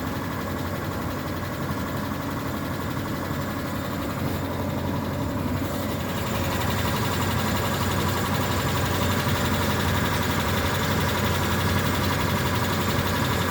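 Mitsubishi Pajero engine idling steadily with a knock, the fault being recorded. It gets somewhat louder about six seconds in.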